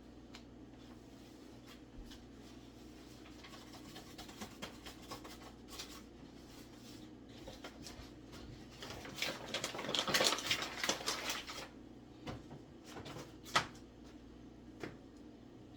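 Kitchen handling noises: scattered clicks and knocks of dishes and utensils, with a stretch of busier clattering and scraping in the middle and one sharp knock a little later.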